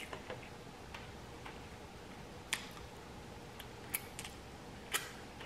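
Eating sounds while barbecue chicken is eaten by hand: a handful of faint, sharp clicks, the clearest about two and a half, four and five seconds in.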